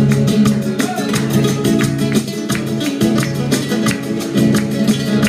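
Acoustic guitar played solo, strummed in a fast flamenco-style rhythm, with sharp strokes several times a second over ringing chords.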